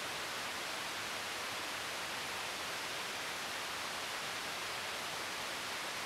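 Steady, even hiss with no calls, knocks or other distinct sounds.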